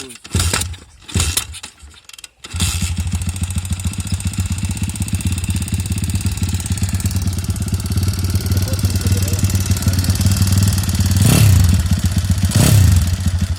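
Geon X-Ride 160 motorcycle engine, which has a knock in it, catching about two and a half seconds in after a few short sounds. It then runs steadily, is revved up and down twice near the end, and cuts off suddenly.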